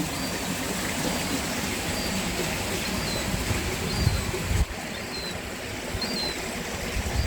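Steady rush of running water, with a small bird giving a short high chirp about once a second.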